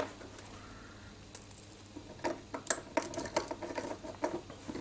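Small metal screws clicking and tapping against a plastic carriage plate as they are handled and set in place: a run of sharp, irregular clicks starting about a second and a half in.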